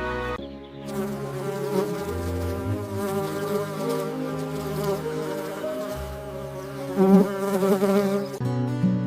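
A flying insect buzzing, its pitch wavering, loudest late on, over soft background music.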